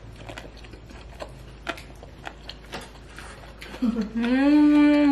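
Light clicks of chopsticks and dishes at a dinner table. About four seconds in comes one long, loud, wordless vocal sound that rises, holds and then falls in pitch.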